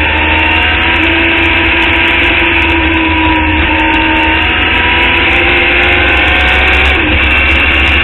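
On-board sound of a Club Formula Indy race car's engine at full throttle, its pitch climbing slowly as the car accelerates down a straight, then dipping briefly near the end, over a heavy low rumble.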